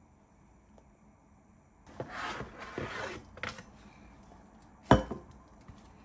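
Cardboard box and tissue paper rustling as a gift is unpacked, then one sharp knock near the end as an object is set down on the desk, with a few light clicks after it.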